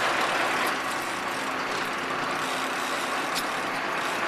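Steady rushing noise of a sportfishing boat's engine running with water and wind, with two brief faint clicks.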